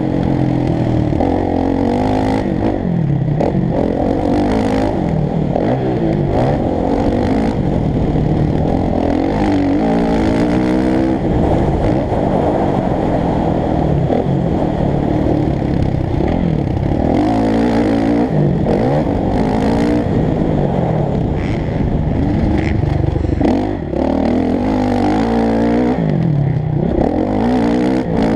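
Motocross bike engine heard from on board, revving hard and falling back again and again as the rider opens and shuts the throttle through the track's sections, with brief drops in pitch at each gear change. A short dip in the engine note comes a little before the end.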